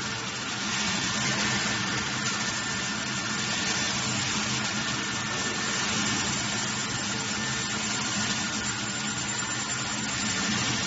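Electric corn crusher running steadily under load while dried corn kernels are poured into its hopper and ground, giving a dense, even machine noise with a steady hum.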